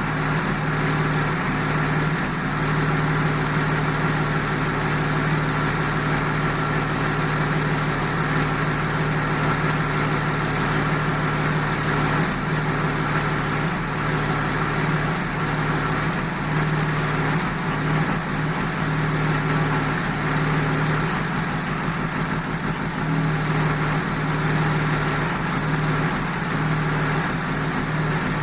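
Jaguar XJ6 X300's AJ6 straight-six engine idling steadily with a misfire.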